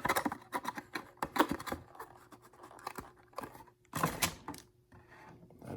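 Packaging being handled and pulled apart as a model airplane's parts are taken out of the box: irregular crackling, scraping and tearing, with a louder burst of handling about four seconds in.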